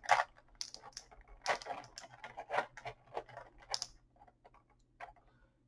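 Small plastic parts and packaging of an action figure being handled: irregular light clicks and rustles as the swappable accessory hands are taken out, dying away after about four seconds.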